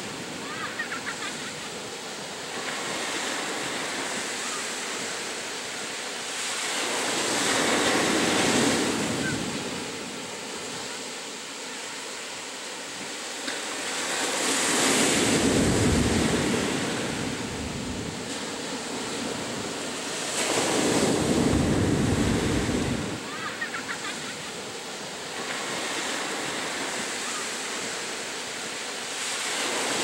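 Ocean surf breaking on a sandy beach. Waves crash and wash up the shore in slow surges about every six or seven seconds, with a steady rush between them.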